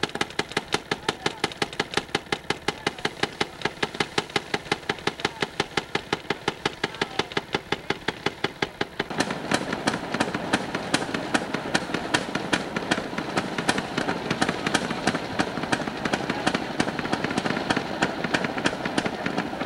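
Railroad motorcar (speeder) engines idling, with rapid, even exhaust beats about six a second. About nine seconds in, this gives way to a denser, steadier engine sound of a diesel locomotive idling.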